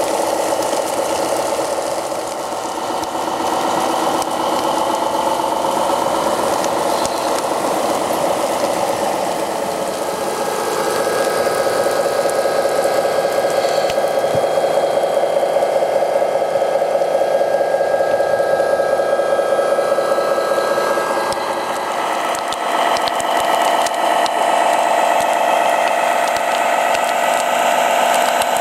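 Small electric motors and water pumps of radio-controlled model fire trucks whirring with a rapid, steady buzz while they spray. The pitch shifts about a third of the way in and again about three quarters of the way in.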